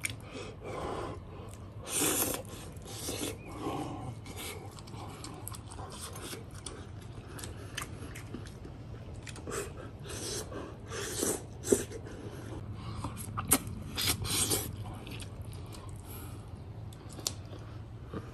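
Close-up eating sounds: a person gnawing and chewing lamb meat off a bone, with scattered wet clicks and smacks coming in irregular bursts.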